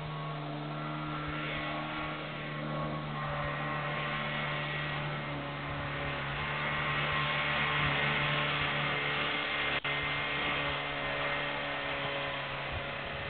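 Buran snowmobile's two-stroke engine running as a steady drone while it travels. It grows louder up to about two-thirds of the way through, then eases off a little as the machine draws away.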